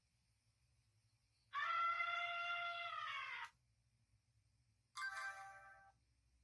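Nokia E72 alert tones played through the phone's speaker: a long electronic tone of about two seconds that slides up into a held note, then a second, shorter tone of about a second.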